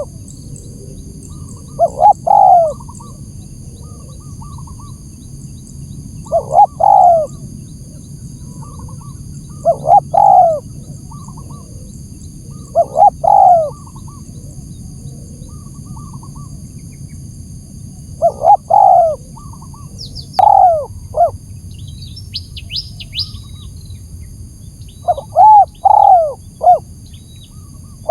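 Spotted dove (tekukur) cooing, a lure (pikat) call: phrases of two or three arched notes repeated every few seconds, with a longer run of several notes near the end. A brief burst of high thin chirps from a smaller bird comes about two-thirds of the way through.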